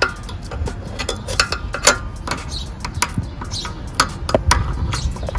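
Irregular small clicks and ticks of pliers picking shards of a smashed plastic governor gear out of a Predator 212cc engine's crankcase, metal tapping against plastic and the metal case.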